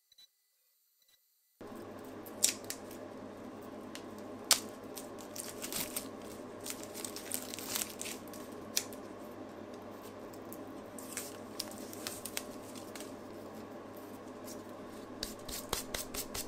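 Near silence for about the first second and a half, then hands handling a freshly machined polycarbonate plate: scattered sharp plastic clicks and rustles over a steady background hum.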